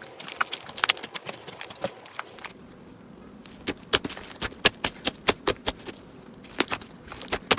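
Slime being pressed and poked by hand, giving sharp crackling pops and clicks in clusters, with a pause of about a second near the middle.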